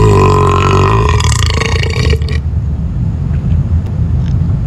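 A woman's long, loud burp that stops about two and a half seconds in, followed by a low rumble.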